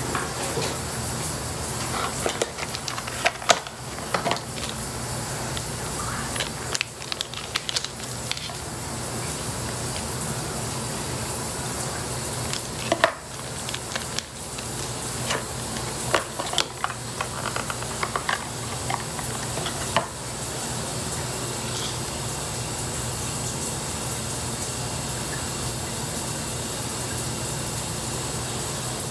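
Shower running as a steady hiss of water. Over it come scattered crinkles, tearing and clicks as a pregnancy test's wrapper is opened and handled, from about 2 to 20 seconds in.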